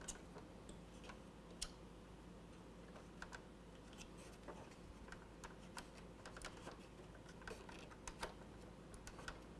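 Faint, irregular light clicks and taps of hard plastic as the parts of a 1986 LJN Thundercats Mutant Fistpounder toy tank are handled and turned, with the clicks coming more often in the second half.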